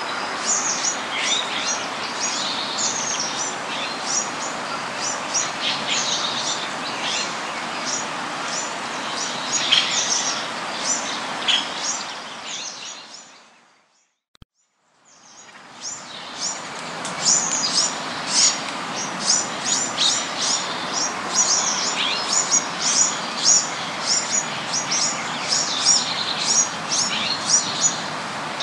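Many birds chirping and calling at once over a steady background hiss, in a dense stream of short, high notes. It fades out about halfway through, falls silent for a moment, then fades back in with the chirping as busy as before.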